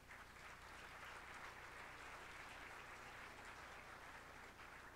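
Faint applause from a banquet audience seated at tables. It starts at once and dies away near the end.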